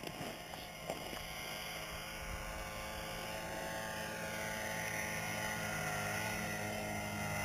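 An engine drones steadily and slowly grows louder, with one of its tones sliding down in pitch partway through.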